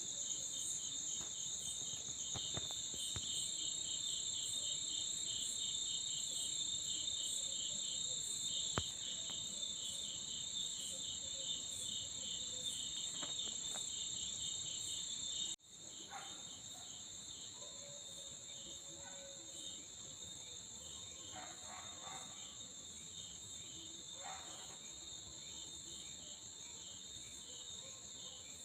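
Insects chirping in a steady high trill, with a regular pulsing chirp under it. The sound cuts off abruptly about halfway through, then carries on quieter.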